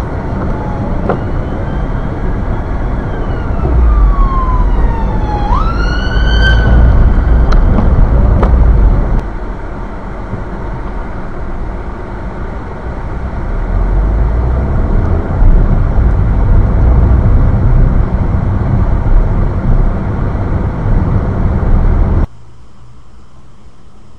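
Steady low rumble of a car driving on a wet road, heard from inside the cabin, with an emergency vehicle's siren sweeping up and down in pitch during the first seven seconds or so. The rumble cuts off suddenly near the end.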